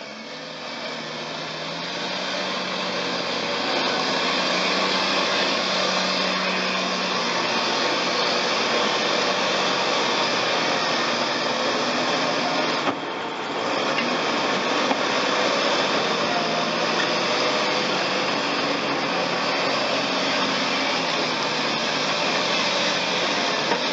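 Caterpillar D6T bulldozer's diesel engine running steadily under load as it pushes mud with its blade. It fades in over the first few seconds and dips briefly about halfway through.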